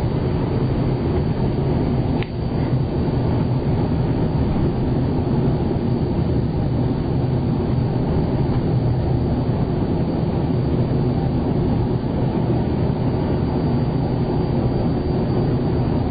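Steady driving noise of a car heard from inside its cabin: a low, even rumble of engine and tyres on asphalt at cruising speed, with one faint click about two seconds in.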